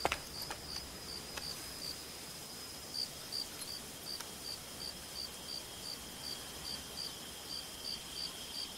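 Crickets chirping in an even rhythm, about three high chirps a second, over a steady, slightly lower insect trill. A few faint ticks come in the first second and a half.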